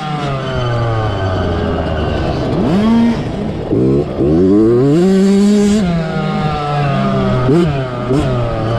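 Yamaha YZ65's small two-stroke single-cylinder engine being ridden hard off-road, its pitch climbing and falling repeatedly as the throttle opens and the gears change. Near the end there are two quick throttle blips.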